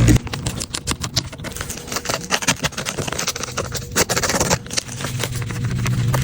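Irregular scratching, scraping and clicking of hand cleaning work on an iPad's grimy casing and screen, with a longer rasping stroke about four seconds in. Steady low backing music comes in near the end.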